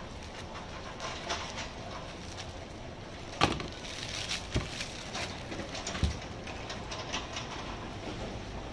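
A knife scraping and slicing at a pineapple, then a sharp knock as the knife is set down on the cutting board, followed by thin plastic bag crinkling as the peeled pineapple is slipped into it, with a couple of lighter knocks.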